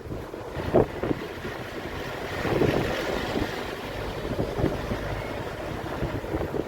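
Wind buffeting the microphone: an uneven rumbling noise with a few sharp thumps, the strongest about a second in.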